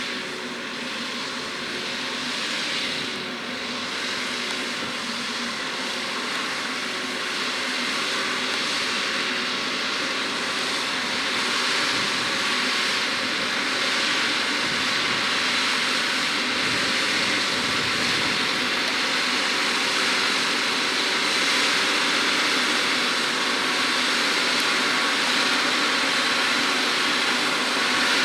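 John Deere 6R 185 tractor's six-cylinder diesel running steadily under load while pulling a six-furrow plough, growing gradually louder as it approaches.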